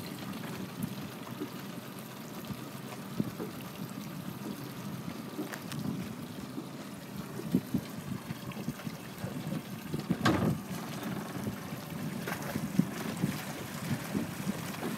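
Wind blowing across the microphone over choppy water, with small waves lapping and a few sudden thumps of wind on the microphone, the loudest about ten seconds in.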